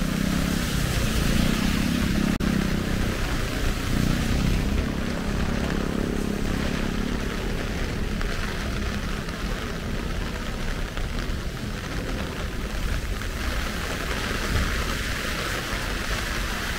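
Heavy rain falling steadily, with a vehicle passing on the wet road during the first several seconds and fading away.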